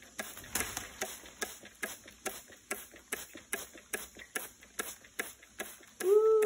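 Hand-pumped water spray bottle squirting over and over, short hissing spritzes about two and a half a second. Near the end comes a short call that rises and falls.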